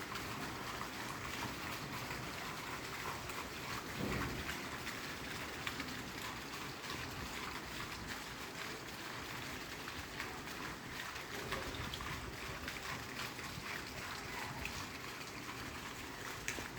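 Steady rain falling, a dense hiss of many small drops hitting surfaces, with a brief low rumble about four seconds in.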